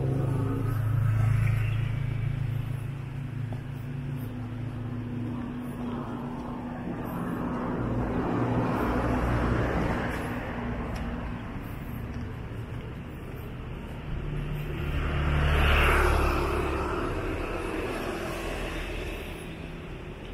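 Street traffic: road vehicles passing one after another over a steady low engine hum, the loudest pass-by about sixteen seconds in.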